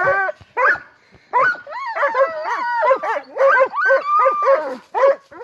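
Dogs barking in quick, high-pitched yelping calls, one after another, at a squirrel up in the tree.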